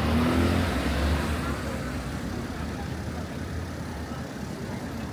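A car passing in the street, its engine rumble loudest in the first second or two and then fading into steady street noise.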